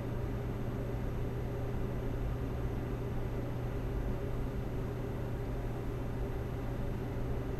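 Steady low hum with a faint hiss: background room noise on the recording microphone while no one speaks.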